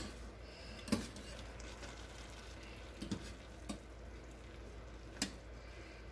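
Sausage, sofrito and potatoes frying in olive oil in a pan, a faint steady sizzle, with a utensil knocking against the pan about five times as the mix is stirred.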